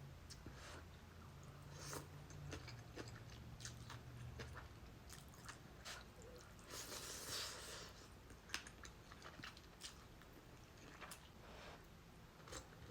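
Soft, close-up chewing and mouth sounds of someone eating ramen with kimchi: scattered small clicks and smacks, with one longer noisy sound about seven seconds in.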